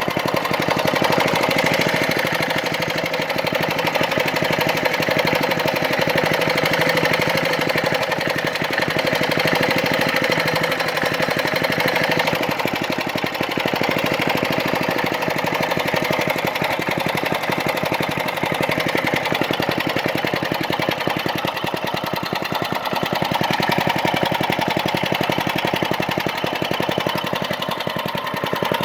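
Small Briggs & Stratton engine running steadily with a fast, even firing beat, its pitch drifting a little up and down.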